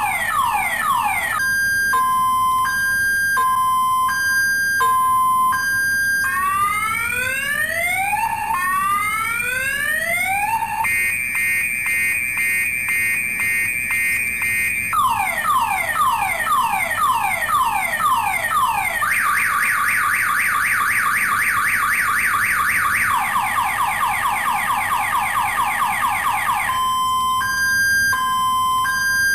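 Electronic multi-tone car alarm siren cycling through its sequence: alternating two-pitch beeps about once a second, then slow rising whoops, a steady warble, quick falling sweeps several times a second and a fast high warble. It returns to the two-pitch beeps near the end.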